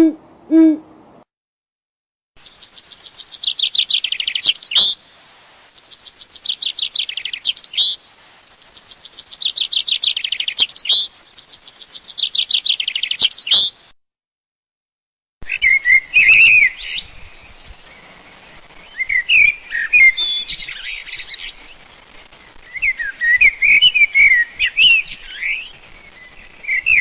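Recorded birdsong. A low hoot ends about a second in. Then one bird sings the same rapid high trilling phrase four times, each about two and a half seconds long with short gaps. After a brief pause, a different bird takes over with varied high chirps and whistles.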